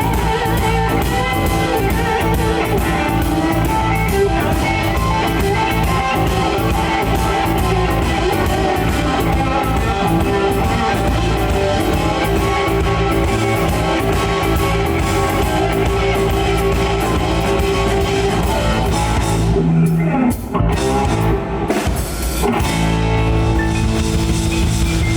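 Live rock band playing an instrumental passage, guitar over drums and bass with a steady beat. About twenty seconds in the band breaks into a few short stop-time hits, then the full band comes back in.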